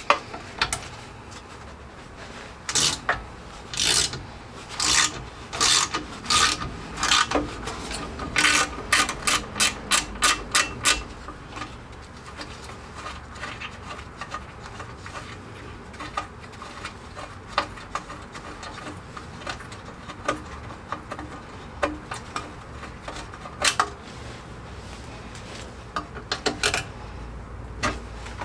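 Hand-tool work on a car's rear suspension: a run of short rasping strokes, slow at first and then quicker, followed by scattered clicks and knocks.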